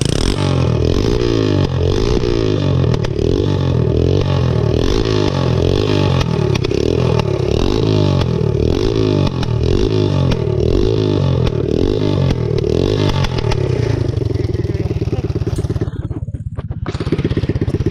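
Straight-piped 110cc single-cylinder ATV engine running loud, revved up and down over and over, about once a second, then settling to a steadier idle near the end.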